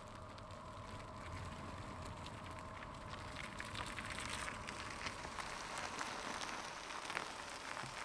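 A car's tyres crackling over the ground as it rolls slowly into a parking space, growing a little louder, with a faint steady hum in the first few seconds that fades out.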